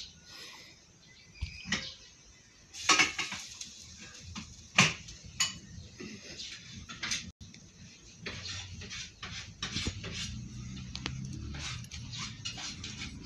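A keychain with a metal clasp and plastic fob clicking and clinking as a puppy paws and chews at it, with scattered sharp clicks, the loudest about three and five seconds in.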